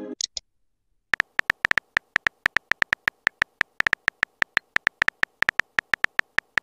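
Key-tap clicks of a texting app's on-screen keyboard: a quick run of short, high ticks, about four a second, as a message is typed. The run starts about a second in.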